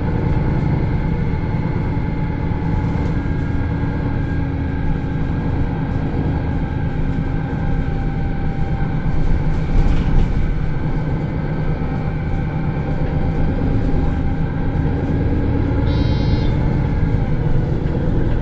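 MAN NL323 Lions City city bus's diesel engine and drivetrain running steadily under way, heard from inside the bus with road rumble. The engine notes shift slowly in pitch. A sharp click comes about ten seconds in, and a short high-pitched sound near the end.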